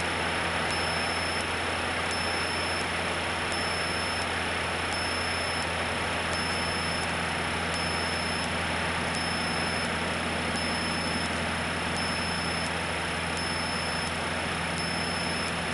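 Cessna 152's four-cylinder Lycoming piston engine and propeller running steadily at climb power, heard from inside the cabin as a constant drone with broad wind and engine noise.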